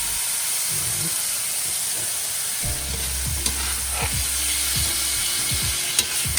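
Chicken and vegetable stir fry sizzling steadily in a hot cast iron pan, with a couple of light clicks partway through.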